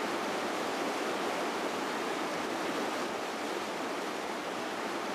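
Steady rushing of an underground river gushing out of an opening in a marble cliff.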